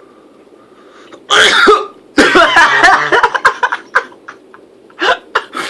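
A man sneezes hard with a sudden loud burst about a second in. It is followed by a run of loud coughs and vocal sounds, then shorter coughing bursts.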